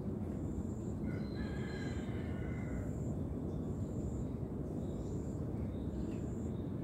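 Outdoor ambience: a steady low rumble, with a high thin chirp repeating about once a second. A distant bird's drawn-out call comes in about a second in and lasts around two seconds.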